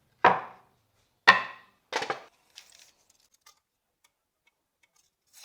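Sharp knocks on wood: two loud single strikes about a second apart, then a quicker double knock, a few faint taps, and one more knock at the very end.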